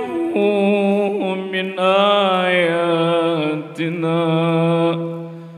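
A male qari chanting Qur'anic recitation (tilawah) through a microphone in a long melismatic phrase, holding sustained notes and gliding between them. There are two short breaks, and the voice trails off near the end.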